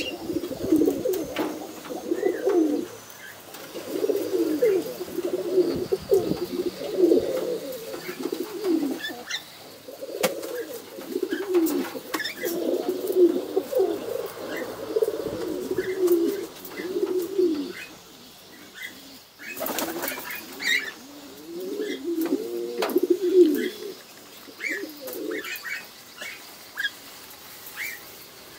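Domestic pigeons cooing, a low warbling coo repeated in bouts of a few seconds, with a short flurry of wingbeats about two-thirds of the way through.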